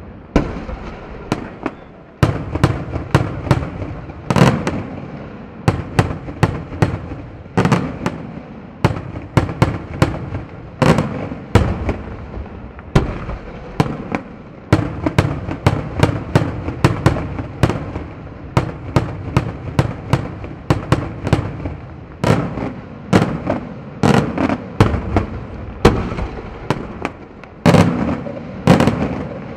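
Daytime aerial fireworks shells bursting in a rapid, unbroken barrage, several sharp bangs a second, each echoing briefly.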